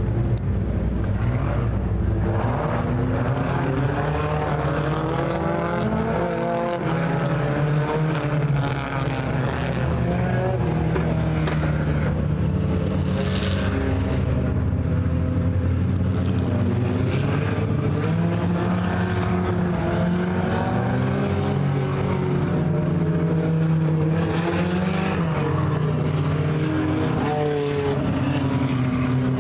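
Several Pure Stock four-cylinder dirt-track race cars lapping the oval together. Their engine notes overlap, each rising and falling in pitch as the cars accelerate down the straights and lift for the turns.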